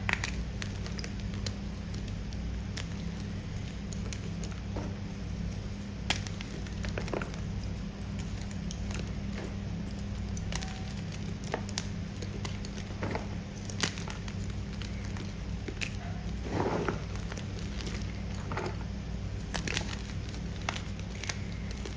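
Close-miked chewing of crunchy pasted gumchalk: scattered sharp crunches and crackles, a few at a time, over a steady low hum.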